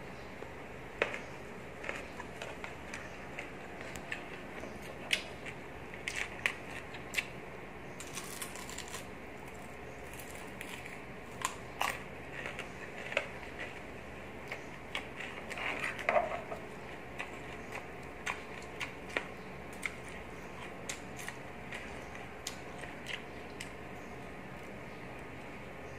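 Close chewing of crunchy food, squid skin and raw vegetables, heard as irregular crunches. Cutlery clicks on the plate now and then, over a steady background hiss.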